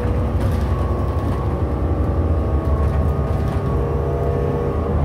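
Transperth city bus under way, heard from inside the passenger cabin: a steady low engine and road rumble with a faint steady whine over it.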